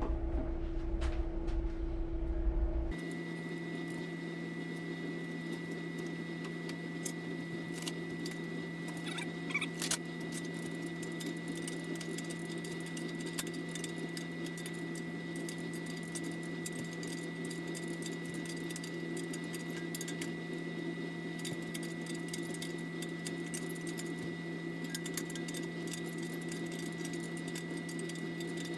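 Mini excavator running steadily: an even hum with a high held whine and many light rattling clicks. About three seconds in, the sound changes abruptly from a low rumble to this steady hum.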